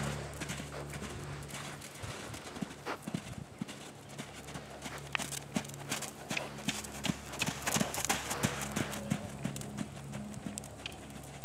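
Hoofbeats of a yearling warmblood filly trotting loose on sand arena footing, an irregular run of soft footfalls.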